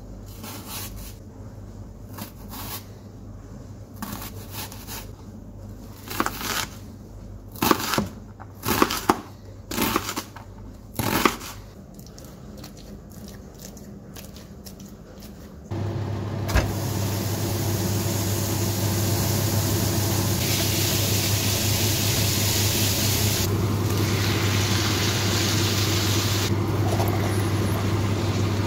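A kitchen knife chopping on a plastic cutting board, a handful of sharp chops about a second apart. About halfway through, a steady sizzle of minced meat frying in a pan starts suddenly and carries on.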